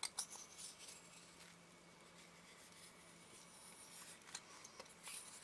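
Near silence, with a few faint light clicks and rubs as the metal front ring of a Nikkor 85mm lens is turned against its thread to find where it starts.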